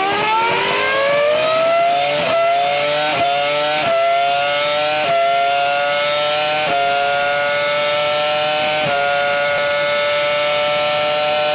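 BAR Honda Formula 1 car's 3.0-litre Honda V10, heard onboard, accelerating flat out through the gears. It shifts up about six times: each shift is a short dip, then the high pitch climbs again. In the higher gears the pitch rises more slowly and levels off.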